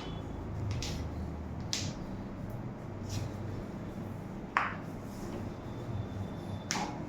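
A handful of short, sharp cracking pops, about five spread over several seconds with the loudest about halfway through, from joints being manipulated during a chiropractic adjustment.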